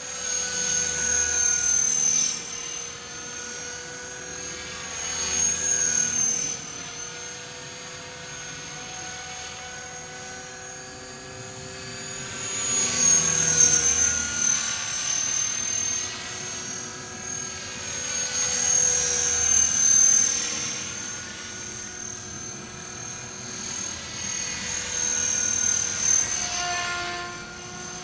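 Align T-REX 500 radio-controlled electric helicopter running, with a steady high whine over the rotor sound, growing louder and fading again about five times. The whine is the abnormal noise that the helicopter has developed.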